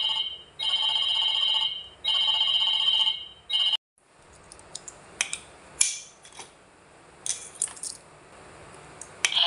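A pulsed electronic ringing tone, about a second on and a short gap off, cuts off suddenly a little before four seconds in. Then comes a run of scattered small plastic clicks and clacks with a coin clinking, the mechanism of a figure-shaped coin-eating bank.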